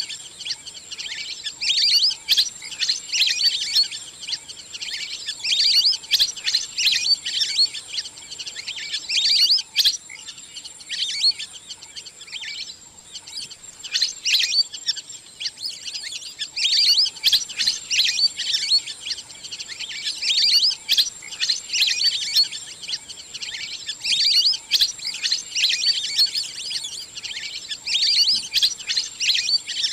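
A flock of wild ducks calling in rapid, high, whistled chirps that come in dense bursts every few seconds, over a steady thin high whine.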